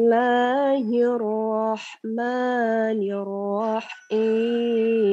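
A woman chanting Quranic recitation in the bayati maqam: long held, melismatic notes with slow turns in pitch, broken by short breaths about two and four seconds in.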